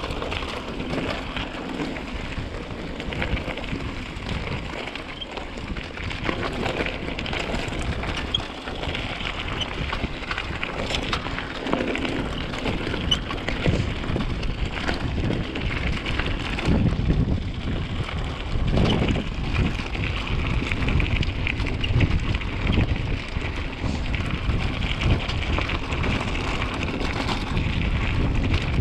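Wind buffeting an action camera's microphone over the rumble of mountain-bike tyres on a rough trail, with scattered knocks and rattles from the bike, getting a little louder past the middle.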